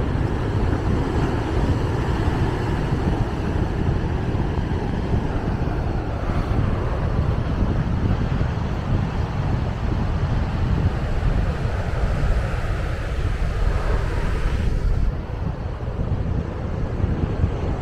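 Wind rumbling on the microphone over the steady rush of heavy surf breaking on a sandy beach, easing slightly near the end.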